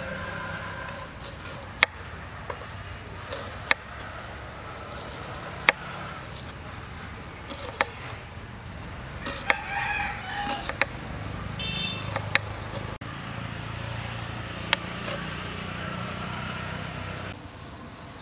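Knife slicing a red onion on a wooden chopping board, with a sharp knock of the blade on the board every couple of seconds. A chicken calls in the background around the middle.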